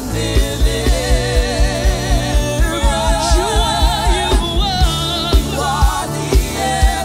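Live gospel worship music: a female lead singer singing with wide vibrato, with backing singers, over a band with bass and a steady kick-drum beat.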